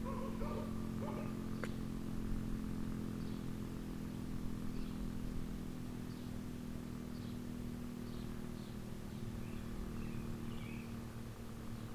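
Outdoor ambience: small birds chirping now and then over a steady low hum, with a single sharp click about a second and a half in.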